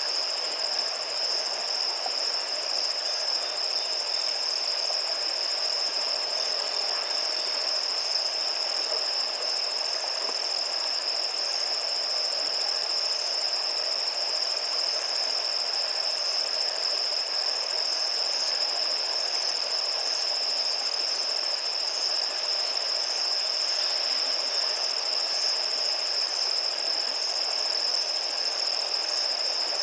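Night chorus of crickets: a steady, unbroken high-pitched trill over a soft hiss of other insects.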